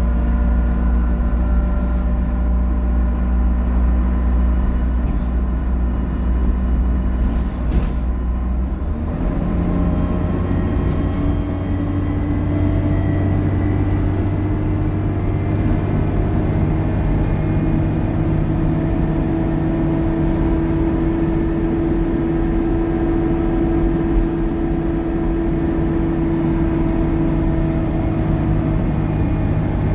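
Dennis Trident double-decker bus engine running under load, with the 'hoovering' whine and whistle the bus is known for. About nine seconds in the note changes abruptly, then a steady whine climbs slowly as the bus pulls.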